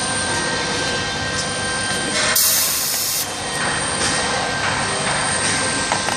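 A short blast of compressed air from a hand-held air blow gun, just under a second long and about two and a half seconds in, over a steady hum and hiss of machinery.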